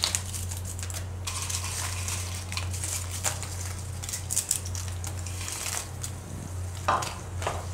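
Crisp fried papdi wafers being broken up by hand and dropped into a pan of yogurt curry: irregular dry crunching and crinkling.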